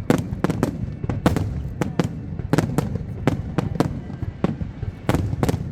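Fireworks display: an irregular run of sharp bangs and crackles, several a second, over a continuous low rumble.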